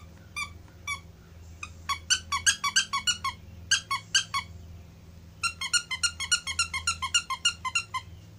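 Squeaker in a plush dog toy being squeezed over and over, giving short, high squeaks: a few spaced ones at first, then two quick runs of several squeaks a second.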